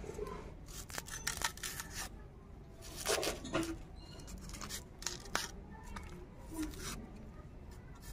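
An onion being peeled against a boti blade: its dry, papery skin is scraped and torn off in a series of short, crisp strokes.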